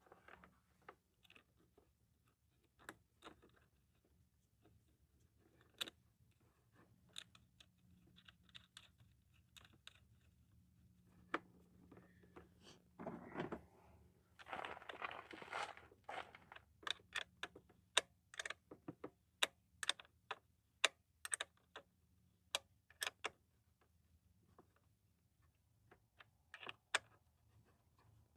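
Scattered sharp metallic clicks and taps of hand tools working on battery terminal nuts, with a stretch of scraping and rustling about halfway through.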